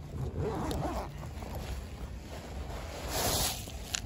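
Handling noise from a fabric backpack being rummaged: irregular rustling, a short hiss about three seconds in, and a sharp click near the end.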